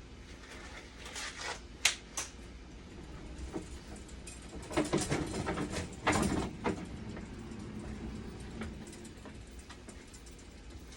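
Knocks and clicks of objects being handled: a sharp click about two seconds in, then a couple of seconds of knocking and rattling a little before the middle, over a steady low hum.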